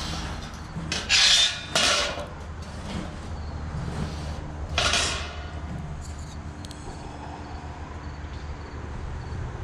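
Three short scraping sounds, two close together about a second in and one about five seconds in, over a low steady hum.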